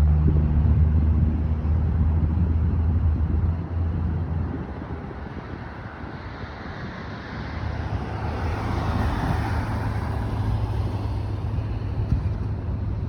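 Road traffic at an intersection: a vehicle engine idling with a steady low hum for the first few seconds, then fading, and a vehicle passing by, its tyre and engine noise swelling and dying away, with another engine idling underneath near the end.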